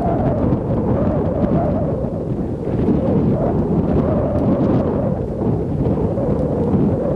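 Strong sea wind buffeting the microphone over waves breaking on the shore, heard as a steady, heavy low rumble.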